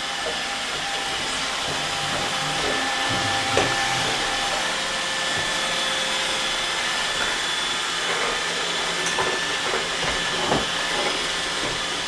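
iRobot Roomba 880 robot vacuum running on a hardwood floor: a steady whirring hiss with a faint high whine, broken by a couple of light knocks, one about three and a half seconds in and one near ten seconds.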